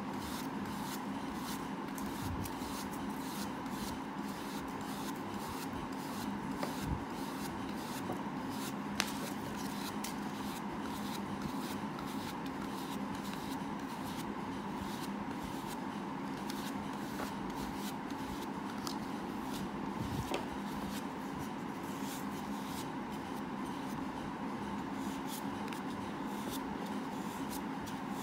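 Flat paintbrush brushing varnish onto a tape-covered jar lid: soft scratchy strokes and light, irregular handling ticks, over a steady background hum.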